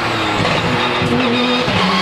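Race-prepared Porsche 997 GT2 RSR's twin-turbo 3.9-litre flat-six running hard, heard from on board the car. The engine note holds a steady pitch, breaks briefly near the end, then starts climbing again.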